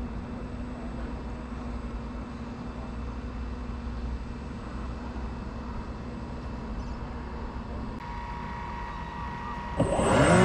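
A radio-controlled model boat's motor runs steadily under way, a low hum with water hiss, heard from a camera on board. Near the end a much louder motor sound starts suddenly, its pitch rising and then falling as it revs.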